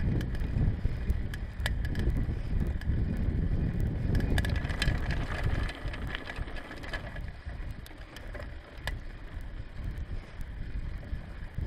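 Bicycle ridden over a rough grass and stone path: a low rumble from the tyres and frame, with scattered small clicks and rattles from the bike. The rumble eases off about halfway through.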